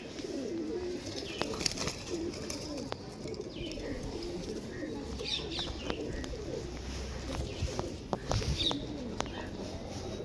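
Domestic pigeons cooing continuously, with scattered sharp clicks and a few brief higher calls.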